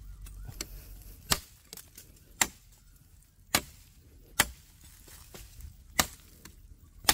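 A 10-inch L6-steel KRM Bamboo knife chopping into a barked branch: about six sharp chops, roughly one a second, with small ticks between them.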